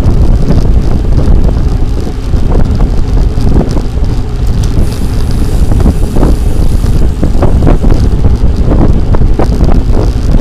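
Loud wind buffeting on a microphone carried on a moving bicycle: a low rumble with uneven gusts.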